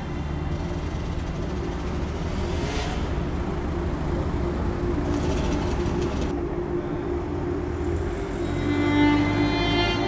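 Slow ambient instrumental background music with long held notes.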